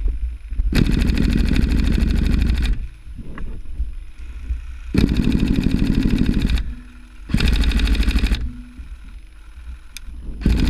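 Airsoft electric rifle, a Tokyo Marui HK416D Recoil Shock AEG, firing fully automatic. There are three bursts of rapid clicking shots: a two-second burst about a second in, a shorter one midway, and a one-second one after it. A fourth burst starts right at the end.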